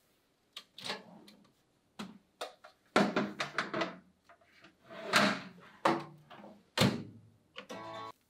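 A small countertop oven's door being opened and a baking tray of granola slid in over the metal rack, then the door shut: a string of separate knocks and clicks of metal and plastic, with a short rattle near the end.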